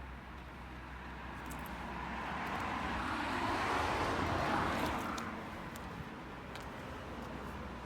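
A vehicle passing by: its noise swells steadily to a peak about four and a half seconds in, then fades away.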